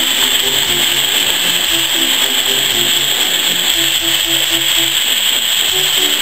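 Background music, a simple tune of short stepping notes, over a loud steady hiss.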